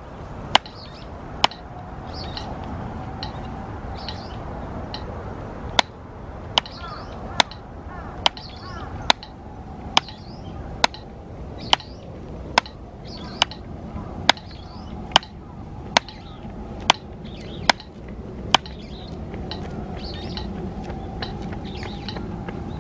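Drumsticks striking a drum practice pad in slow, evenly spaced single strokes, about 70 a minute, as a metronome-tempo stroke exercise. After two strokes there is a pause of about four seconds, then a steady run of sixteen strokes that stops a few seconds before the end.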